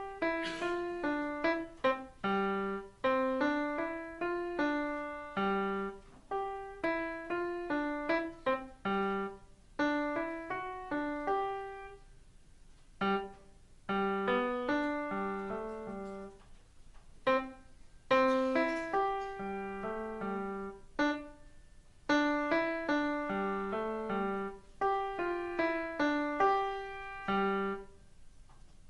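Solo piano playing a short, light sonatina in detached phrases of quick notes, with brief pauses between phrases.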